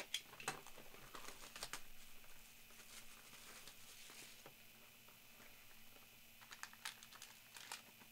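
Faint clicks and rustles of a 2022 Topps Tier One hobby box being opened by hand and its inner packaging pulled out, with scattered light taps and crinkles.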